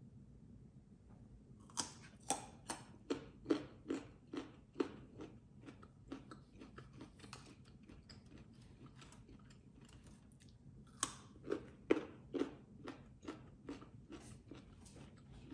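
Raw carrot sticks being bitten and chewed, a run of sharp crunches a little over two a second starting about two seconds in and fading to softer chewing, then a second run of crunches near the end.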